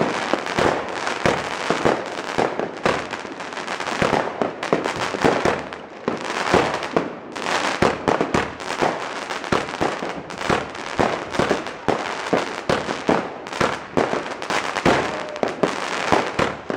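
Lesli 'The Masai' firework going off: a dense, unbroken run of rapid pops and cracks.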